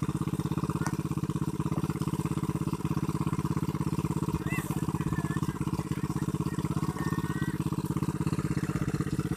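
Engine of a rice-harvesting or threshing machine running steadily with a fast, even beat.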